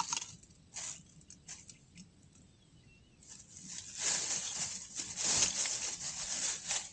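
Handling noise from camp gear: scattered light clicks and brief rustles, then about three seconds of uneven rustling in the second half.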